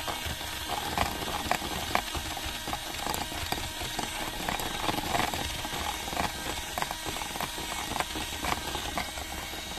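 Engine oil being stirred by hand in a container to mix in Valena additive concentrate: irregular light knocks and scrapes over a steady low hum.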